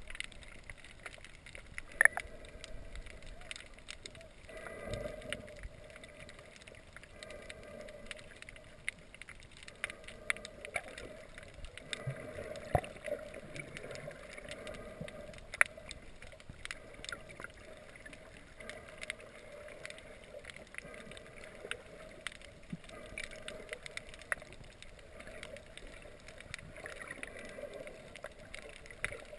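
Muffled underwater sound heard through a GoPro's underwater housing: a steady low hum scattered with many sharp clicks and pops, a few of them much louder than the rest.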